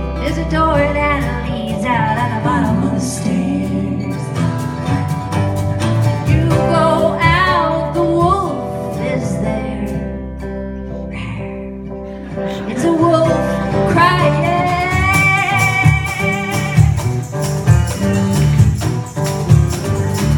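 Live band music played on electric guitar, bass guitar, acoustic guitar and cajón in a passage without sung lyrics, with lead lines that bend in pitch. The beat grows stronger near the end.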